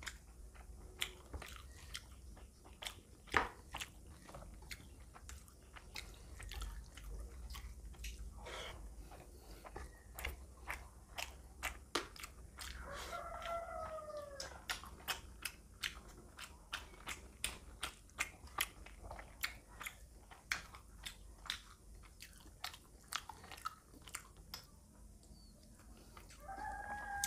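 Close-up mouth sounds of rice and fish eaten by hand: wet chewing with many sharp lip-smacking clicks, one or two a second. A brief pitched call sounds in the background about halfway through.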